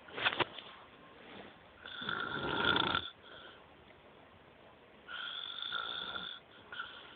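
Snoring: two long snores about three seconds apart, each carrying a high whistling note, after a short sharp breath at the start.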